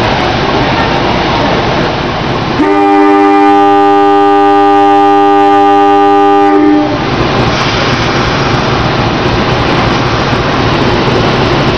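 Diesel locomotive's air horn sounding one steady chord of several tones for about four seconds, starting a few seconds in, as the train is dispatched from the platform. Engine and train running noise fill the rest.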